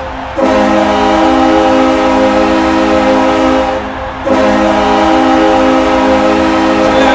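Ice hockey goal horn: a loud multi-note chord horn sounding in long steady blasts, with a brief break about four seconds in.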